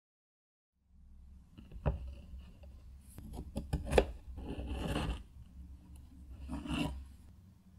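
Kitchen knife cutting through a baked red velvet cookie and onto a wooden cutting board: a sharp tap about two seconds in, a run of clicks around three to four seconds, then two longer scraping cuts, the second near the end.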